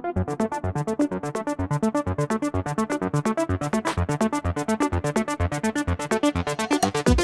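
Electronic dance music: a fast, evenly pulsing synthesizer line of about eight notes a second, its treble opening up at the start and building with a rising sweep near the end.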